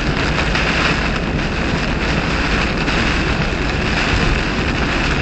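Heavy rain and storm winds buffeting a car driving at about 45 mph on a wet road, heard inside the cabin as a loud, steady wash of noise mixed with tyre spray.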